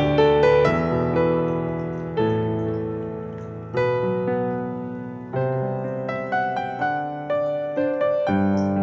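Background piano music: a slow, gentle melody of struck notes and chords, each left to ring and fade before the next.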